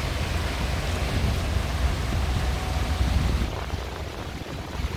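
Water running down a stepped cascade fountain, a steady splashing hiss, with wind buffeting the microphone as a low rumble underneath.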